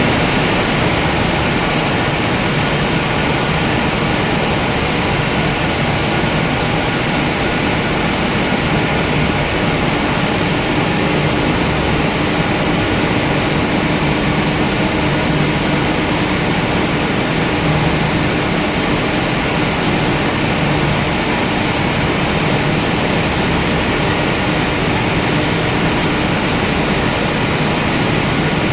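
High-pressure fog misting system running: a steady, loud hiss of water spraying from the fog nozzles, with a faint steady hum underneath.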